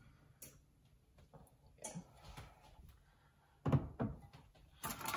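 Glass measuring cup set down on a wooden table: two knocks close together, then a light metal clatter of a spoon near the end.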